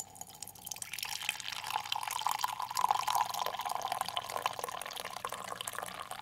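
Coffee being poured in a thin stream into a ceramic mug, a steady splashing fill that stops abruptly near the end.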